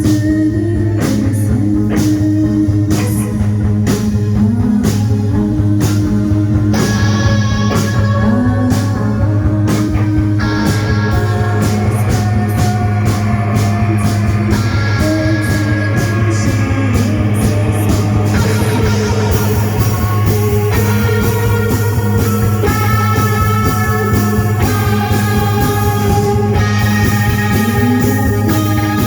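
Rock band playing live: electric guitar lines over a held bass note and a steady drum beat, in a psychedelic rock style.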